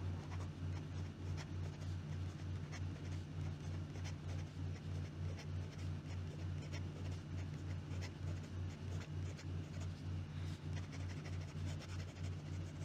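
Fine-nibbed Hero 565 fountain pen writing quickly on lined notebook paper: faint scratches of the nib's strokes. A low hum pulsing about three to four times a second runs underneath.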